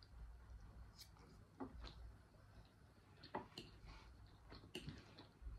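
Faint eating sounds: quiet chewing with a few soft, scattered clicks of a metal fork against a ceramic bowl.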